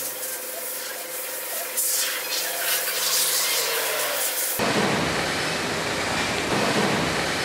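Street traffic noise with a vehicle engine changing pitch. About four and a half seconds in, an abrupt cut brings a steadier, fuller rushing noise.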